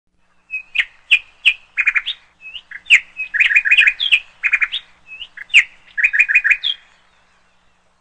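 Indian ringneck parakeet giving short, sharp chirping calls, several in quick runs of three to five, stopping about seven seconds in.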